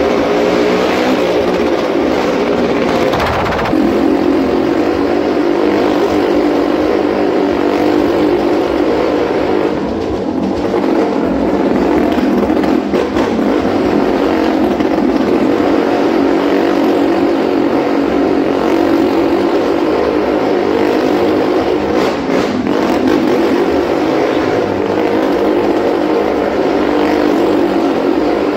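Motorcycle engine running loud and continuously as it circles the vertical wooden wall of a wall-of-death drum, its pitch wavering slightly as the throttle varies.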